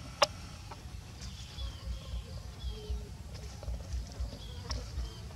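Small birds chirping, short falling chirps about once a second, over a low rumble. A single sharp click comes about a quarter second in.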